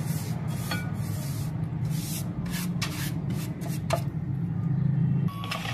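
Pastry brush stroking ghee over the surface and sides of a nonstick pan: a series of short brushing strokes of bristles on the pan, over a steady low hum that stops near the end.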